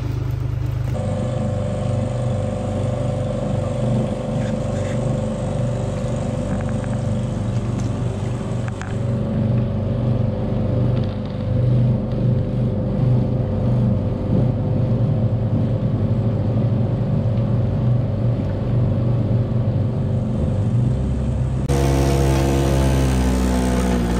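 A steady machine hum whose pitch holds level for most of the time. Near the end it switches abruptly to a small loader's engine revving and changing pitch as it drives.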